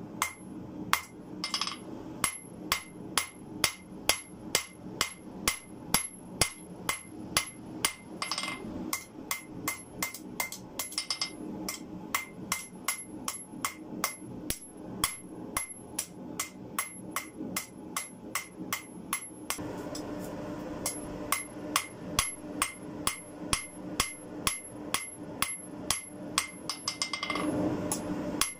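Hand hammer forging a red-hot spring-steel bar on an anvil: a steady run of blows, about two and a half a second, each with a bright metallic ring from the anvil. There is a brief break about two-thirds of the way through.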